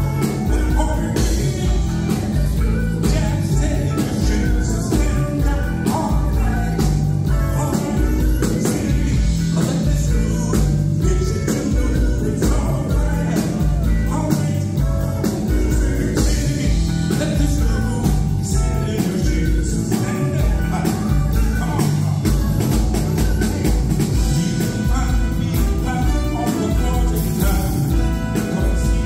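A live band playing an up-tempo number with a steady beat, drums and piano, with a male lead singer over the hall's sound system.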